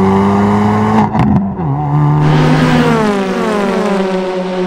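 Race car engine running at high revs, with a gear change and drop in pitch about a second in, then its note falling slowly in pitch.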